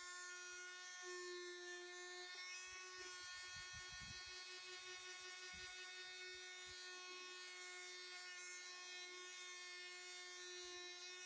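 Electric orbital sander running steadily with a constant whine as it sands a wooden model-ship hull, with a few soft knocks about three to five seconds in.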